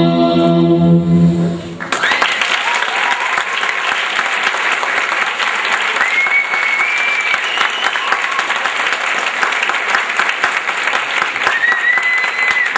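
Ballet music stops about two seconds in, and a theatre audience breaks into applause that runs on, with a few long high whistles rising above it.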